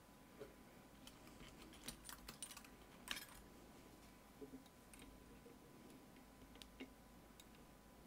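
Faint, scattered small metallic clicks and taps from a tension tool and pick working the pins inside an Opnus UX 13-pin lock, bunched together about two to three seconds in, with a few more later.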